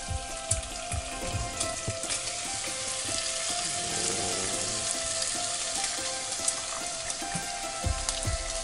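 Chunks of meat sizzling as they brown in a pot on a galley stove, a steady hissing that grows louder toward the middle.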